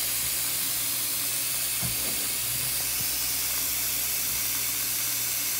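Cold water running from a kitchen tap into a stainless steel bowl of raw chicken breasts: a steady, even hiss of pouring water.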